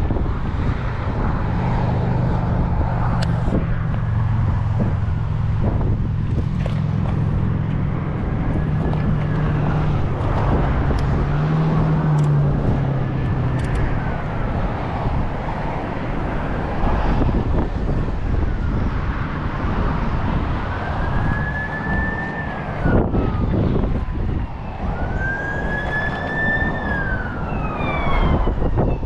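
Distant emergency vehicle siren wailing, its pitch slowly rising and falling over and over and growing plainer in the second half, over steady wind noise and a low engine hum in the first half.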